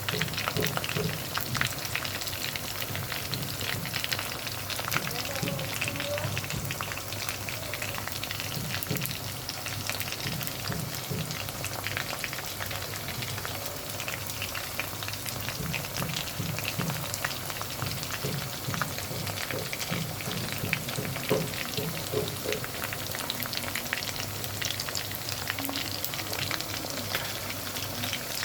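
Chicken pieces frying in hot oil, sizzling steadily with dense, irregular crackling pops.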